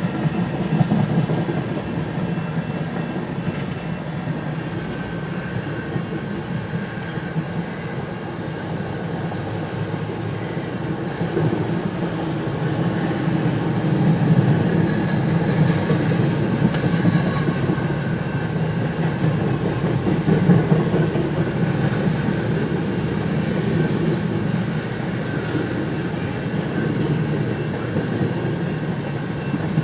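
Canadian National freight train rolling past, its cars' steel wheels clacking over the rail joints in a steady rumble while the train slows.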